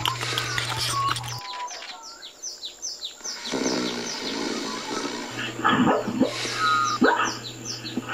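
Birds chirping: short falling chirps repeated about three a second, with a few louder sharp calls near the end and a low hum that starts and stops.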